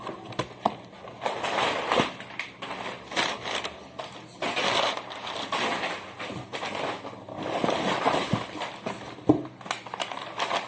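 Packing paper crumpling and rustling as it is pulled from a cardboard box, with scattered knocks and scrapes of the box being handled.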